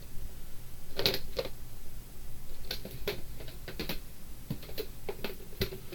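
Irregular light clicks and knocks of plastic videotape cases being handled, picked up and set down, about nine or ten in all.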